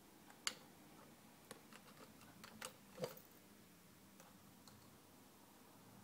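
Green-cheeked conure's beak nibbling and tapping at a hard plastic bird toy: a scatter of small sharp clicks, the sharpest about half a second in and about three seconds in, then a few faint ticks.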